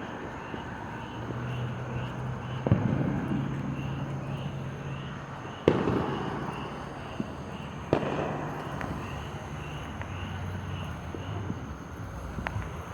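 Fireworks going off: three sharp bangs about three, six and eight seconds in, each trailing off, with a few smaller pops between.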